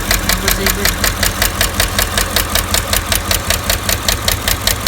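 V8 engine with AFM valve lifters idling with its valve cover off, making a rapid, regular tapping knock. The knock comes from the collapsed, stuck AFM valve lifter on cylinder 7.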